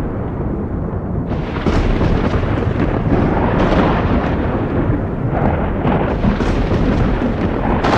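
Thunder rumbling and rolling without a break. About a second in it turns louder and sharper, and several cracks stand out in the rumble after that.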